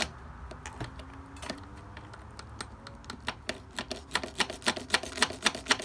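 Irregular metallic clicking of a key being wiggled and turned in a Kawasaki Z1000's ignition lock cylinder, which is sticking after graphite lube was packed into it. The clicks are sparse at first and come quickly and close together over the last couple of seconds.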